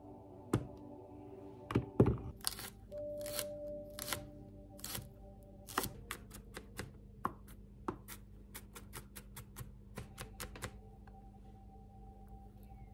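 Kitchen knife dicing garlic on a cutting board: quick, irregular taps of the blade on the board, with a few louder knocks in the first two seconds. Soft background music plays underneath.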